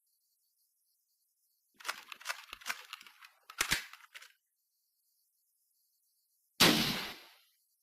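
M40 bolt-action sniper rifle sound effect: a run of sharp metallic clicks and clacks, the bolt being worked, then a single loud shot a few seconds later with a fading tail.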